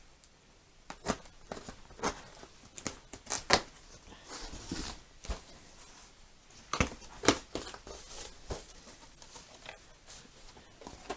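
Cardboard shipping box and its outer packaging being opened and pulled off by hand: irregular sharp knocks and snaps of cardboard and tape, with a stretch of rustling a few seconds in.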